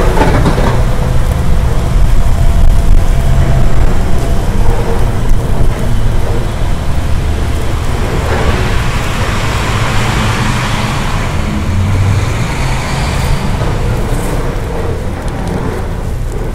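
Road traffic on a snowy street: a car passes about halfway through, its tyre hiss swelling and fading over a steady low rumble.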